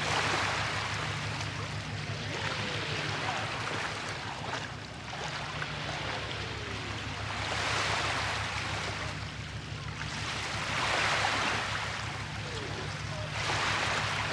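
Water swishing in slow swells that recur about every three seconds, over a steady low hum.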